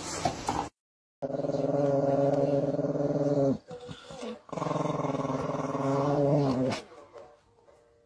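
A small Chihuahua-type dog growls over its food bowl in two long, steady growls with a short break between them.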